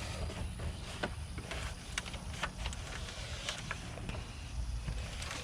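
A rag wiping down a car dashboard with rubbing alcohol: scattered short scrubbing and rubbing noises and small clicks over a steady low rumble.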